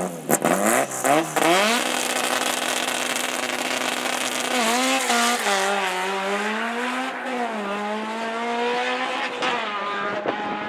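Drag racing car launching and running down the strip under full throttle: the engine revs hard in several quick rising sweeps in the first couple of seconds, then holds a sustained high engine note whose pitch wavers from about halfway through.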